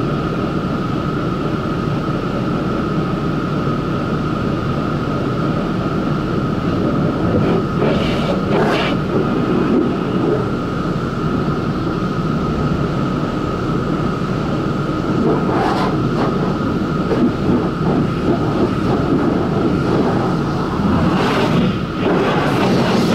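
Car wash tunnel machinery running with a steady drone and a constant whine, heard from inside a waiting car's cabin. Short bursts of water spray come now and then, the last ones near the end as spray reaches the windshield.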